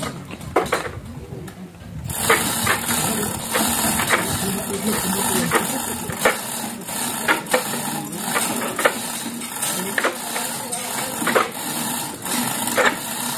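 Irregular clicks and knocks from work on a steel speaker tower, over a steady hiss that starts about two seconds in.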